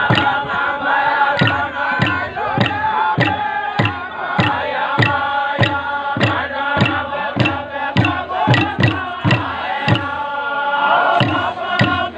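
Group of men chanting together in unison as a ceremonial dance song, over a steady percussive beat of about three strikes a second.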